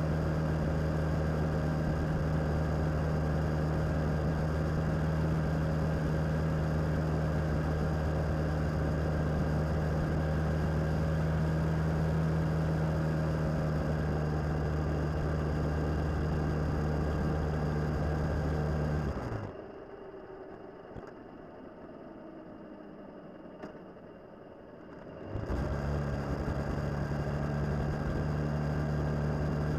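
Suzuki DL650 V-Strom's V-twin engine running at a steady cruise, with rushing air over it. Past the middle the engine note falls away and the sound drops sharply for about six seconds, then the engine note rises back in.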